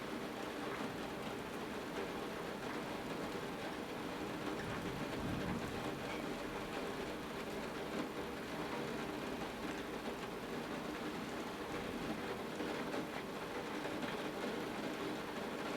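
Thunderstorm rain falling steadily, a continuous hiss of water that has just been picking up quickly.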